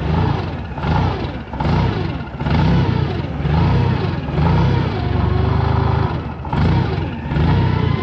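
Toyota forklift's LPG engine idling rough, its speed surging up and down roughly once a second. The surge comes from the gas regulator's mixture knob being set wrong, here letting in too much gas.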